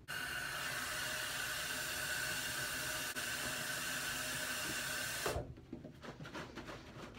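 Bathroom sink tap running steadily for about five seconds, then stopping abruptly, followed by water sloshing and knocking inside a plastic laundry detergent bottle as it is shaken to rinse it out.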